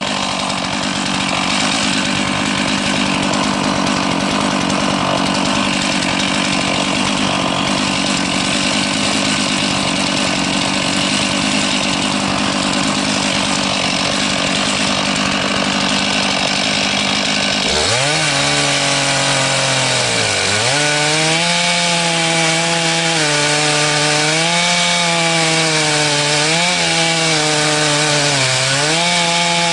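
Chainsaw engine running hard while ripping lengthwise through a log in an Alaskan chainsaw mill. About 18 seconds in the sound changes abruptly. After that the engine pitch dips and recovers several times as the saw bogs under the load of the cut.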